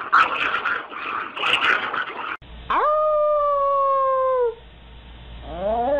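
Chihuahua howling: one long howl that rises quickly and then holds steady for under two seconds, after a stretch of indistinct noise. A second, lower howl begins near the end.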